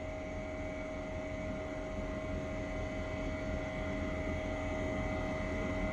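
Steady hum and hiss of the Chinese space station's cabin air-circulation and equipment fans, with a few constant whining tones running through it.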